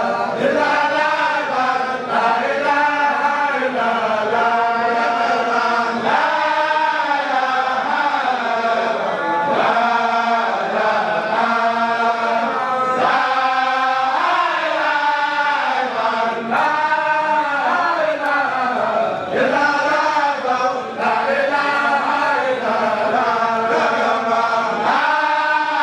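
Mouride devotional chanting: voices reciting religious verses as a melody, in repeated rising-and-falling phrases with short breaks between them.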